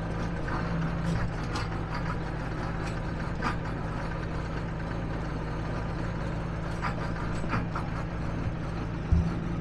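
John Deere tractor's diesel engine running steadily while driving, with light rattles and a sharp knock near the end.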